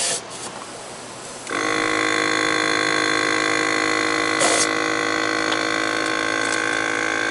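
VIAIR 450P-RV portable air compressor kicking on about a second and a half in and running steadily, pumping air into an RV tire through a chuck pressed on the valve stem. A short hiss of air comes at the start and another about halfway through.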